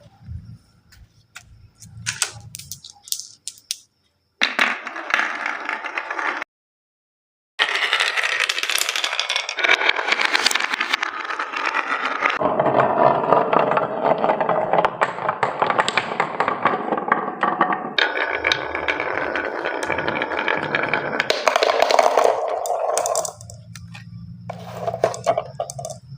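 Many marbles rolling and clattering down a wooden HABA marble run track, a dense continuous rattle that stops dead for about a second and then resumes, fading to scattered clicks near the end.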